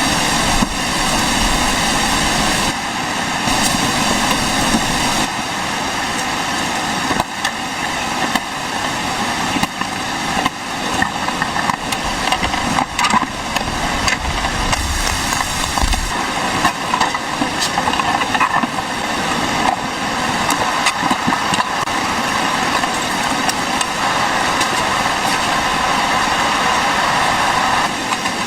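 Heavy rain and strong wind in a storm: a loud, steady rush with a dense crackling patter of drops throughout.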